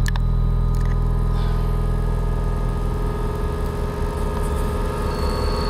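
A low, steady droning hum with a fast pulsing rumble underneath and several held tones over it, with a sharp click right at the start.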